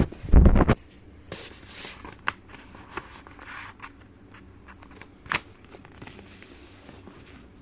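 A sheet of paper being handled and folded: soft rustling and scraping with a few sharp crease clicks, and a dull bump in the first second.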